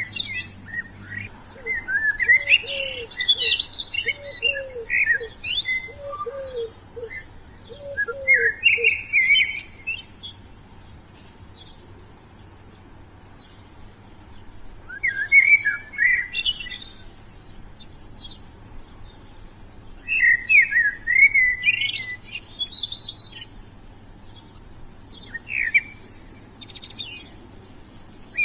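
Wild songbirds singing: short bursts of high, quick chirping phrases every few seconds with pauses between. In the first several seconds a lower call repeats about four times.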